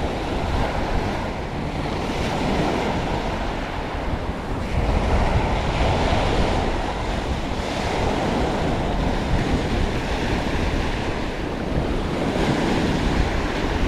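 Rough, choppy sea surf washing in under a strong headwind, with wind buffeting the microphone. The wash surges louder about five seconds in and again near the end.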